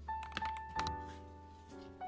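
Mellow piano music with held notes, with a couple of soft keystrokes from a mechanical keyboard fitted with lubed Gateron Yellow switches.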